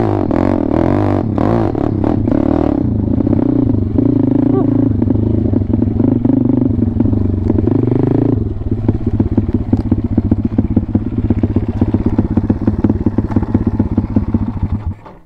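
WPB Beast 190 pit bike's single-cylinder four-stroke engine revving with a wavering pitch as it is ridden. About eight seconds in it drops to a low, pulsing idle, and it cuts off just before the end.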